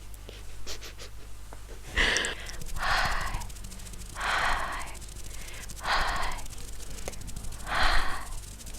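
Slow, breathy exhalations close to an ASMR microphone: five soft breaths spaced about one and a half seconds apart, with no voice in them.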